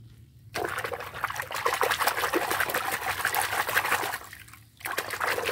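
Water sloshing and splashing in a plastic tub as a hand swishes a toy figure through soapy water. It starts about half a second in, pauses briefly after about four seconds, then resumes.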